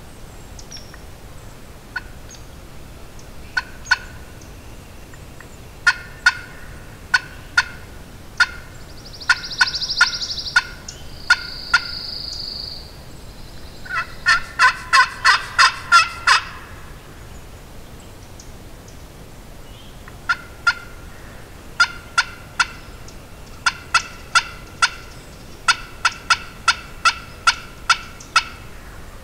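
Wild turkey calling: short, sharp clucks and cutts in irregular runs, with a louder, faster run of about eight notes about halfway through. Two steady high notes sound just before that run.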